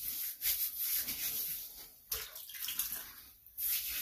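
Water splashing as hands scoop it and rub it over a bald scalp, wetting the head before lathering for a shave. It comes in three bursts: at the start, about two seconds in, and near the end.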